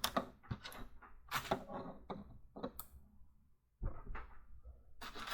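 LEGO SPIKE Prime Technic pieces being handled and pressed together, pegs pushed into beams: a string of irregular plastic clicks and knocks.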